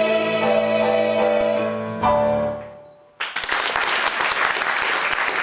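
A musical-theatre cast and accompaniment holding a sung final chord, cut off with a last accented chord about two seconds in that rings briefly and fades. About three seconds in, audience applause breaks out suddenly and continues.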